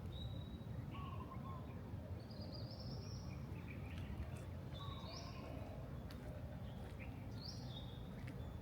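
Birds calling in the morning: short whistled notes and chirps, repeated every second or so, some rising in pitch, over a steady low rumble of background noise.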